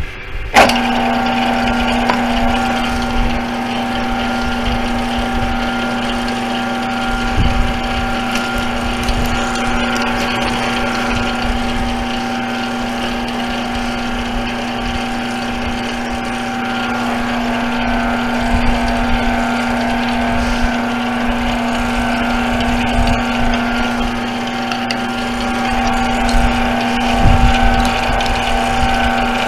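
Brake lathe switched on about half a second in, its electric motor and spindle then running steadily with a constant hum and a higher whine.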